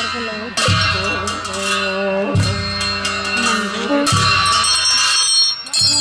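Music: a held, wavering melody over a low drum stroke about every second and a half, with jingling, bell-like percussion on top.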